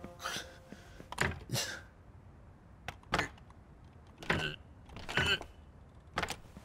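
A locked double glass door being pulled and shaken against its lock, giving a series of short rattles and thunks about a second apart.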